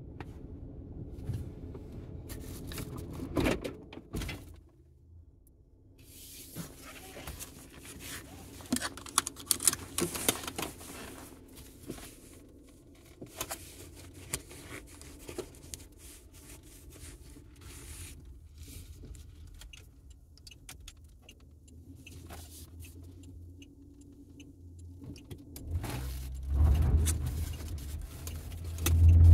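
Inside a car: scattered small clicks and rattles over a faint low hum, then a low rumble of the car grows over the last few seconds.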